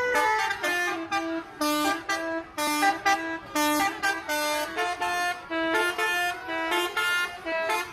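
Bus telolet horn, a multi-tone air horn, playing a tune: a quick run of short notes stepping up and down in pitch, several tones sounding together, with a short break about once a second.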